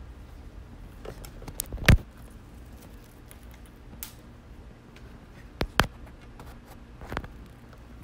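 Clicks and knocks of a small sound card and its cables being handled and set down on a tabletop, over a low steady hum. The loudest knock comes about two seconds in, a quick double knock just before six seconds, and another knock around seven seconds.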